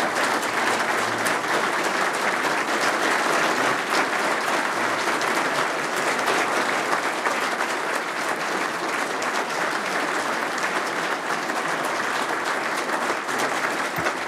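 A large audience applauding steadily: a standing ovation of many hands clapping at once.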